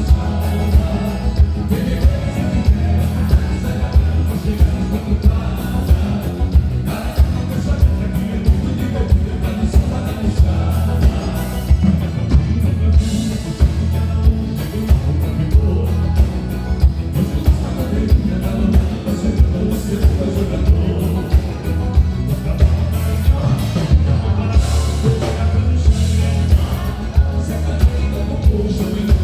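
Live band playing gaúcho dance music with a steady drum beat and a strong bass line.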